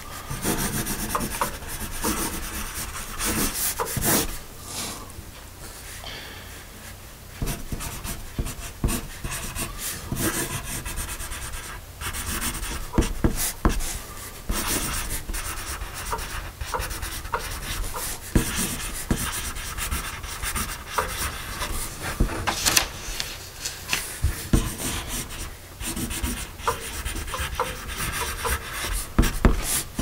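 Pencil lead scratching across paper in cursive handwriting: a run of short scraping strokes with brief breaks as the point lifts, quieter for a couple of seconds about five seconds in.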